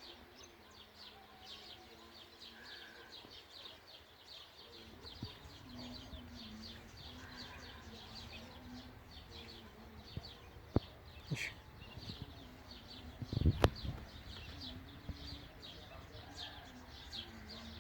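Continuous rapid high-pitched chirping, several chirps a second, over a faint low hum. A few sharp clicks sound around the middle, and a louder burst of sharp knocks follows about two-thirds of the way in.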